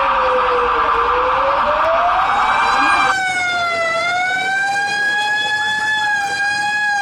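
Siren wailing, its pitch sliding slowly down and back up, sounding the alarm for an earthquake evacuation drill. About three seconds in the sound changes abruptly, as at an edit, and the wail carries on a little quieter.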